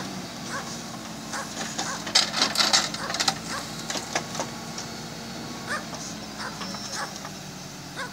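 Tractor engine running steadily under a hydraulic forestry crane at work, with a burst of wooden knocks and clatter about two to three seconds in as the grapple grabs logs from the pile.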